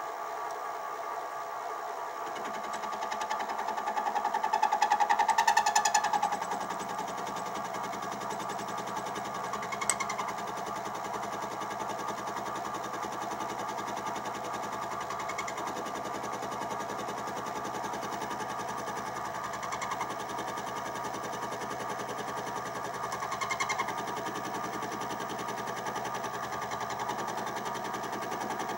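Sieg SX2P mini mill running, its end mill taking light 5 thou side cuts on a brass bearing block. The cutting gets louder for a couple of seconds about four seconds in, with a sharp click about ten seconds in.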